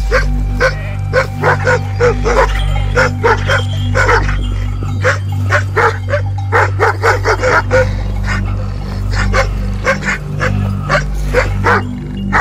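Anatolian shepherd dog barking rapidly and over and over, a few barks a second: an alarm-and-defence bark at a man in a wolf costume approaching the flock.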